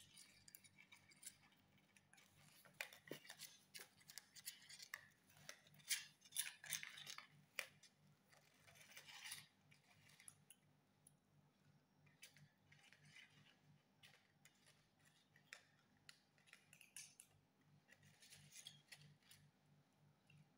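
Cats eating: quiet, irregular crunching, smacking and clicking chewing sounds, busiest in the first half, with a faint steady low hum underneath.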